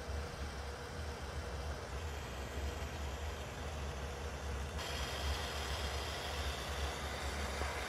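Steady flame noise from a glassworking torch playing on a glass tube turning in a glass lathe, over a low rumble. A brighter hiss joins about five seconds in.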